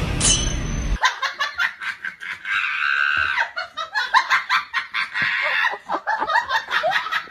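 High-pitched giggling laughter, rapid and unbroken for several seconds. Just before it, music ends with a short high whistle falling in pitch.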